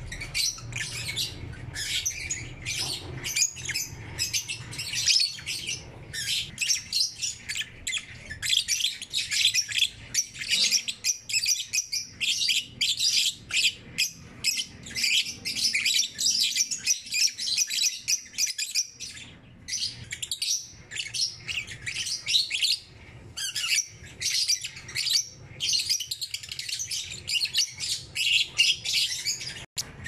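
A flock of caged lovebirds chirping and squawking: a dense, near-continuous stream of rapid, shrill calls from several birds at once.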